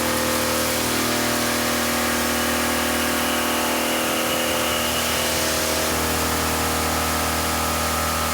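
CNC machine milling metal with an indexable end mill: a steady spindle and cutting tone over a hiss of cutting noise. The tone shifts abruptly about six seconds in.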